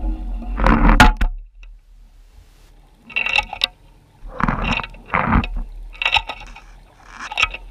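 Clinks and scrapes picked up by an underwater camera as gear knocks against the rocky seabed, in about six short bursts. A low hum underneath fades out about a second and a half in.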